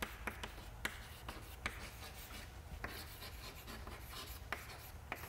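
Chalk writing on a chalkboard: sharp taps of the chalk against the board, with faint scratchy strokes between them.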